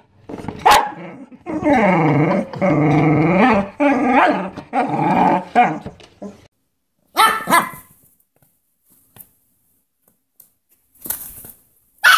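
A dog growling and barking in a run of drawn-out cries that dip and rise in pitch, then a short final outburst about seven seconds in before it stops.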